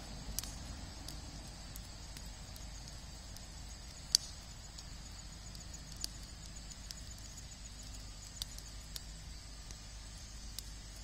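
Wood fire burning in a steel fire ring, crackling with scattered sharp pops, the loudest about four seconds in.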